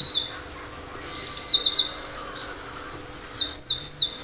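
Cinereous tit (gelatik batu) singing in two bursts of sharp, high whistled notes. The second burst, near the end, is three quick repeats of a two-note phrase that drops from high to lower.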